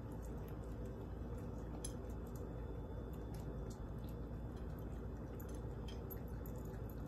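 Three Yorkshire terriers eating from a shared bowl: faint chewing and lapping with many small scattered clicks, over a low steady hum.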